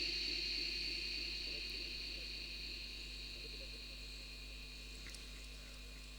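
Steady high-pitched chirring of crickets, slowly growing fainter.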